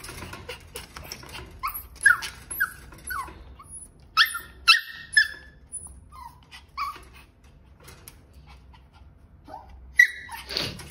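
Small poodle-type dog whining and yipping in short, high calls that bend in pitch, in runs of two or three. The loudest calls come about four seconds in, with one sharp yip near the end.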